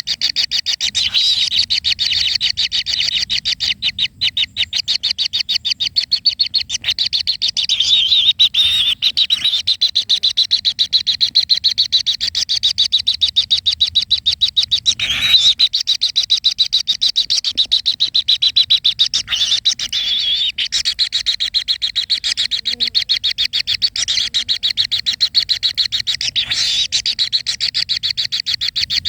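A continuous high-pitched trill made of very fast, even pulses, with a few short, louder calls breaking through now and then.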